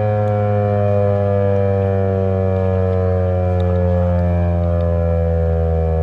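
American Signal T-128 outdoor warning siren sounding loud and steady, its pitch slowly falling as the rotor winds down.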